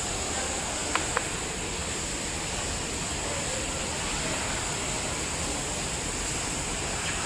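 Steady rushing background noise with a high hiss, broken by two quick sharp clicks about a second in.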